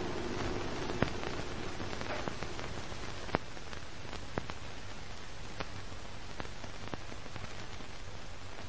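Old-film crackle sound effect: a steady hiss with irregular clicks and pops about once a second, two of them sharper than the rest.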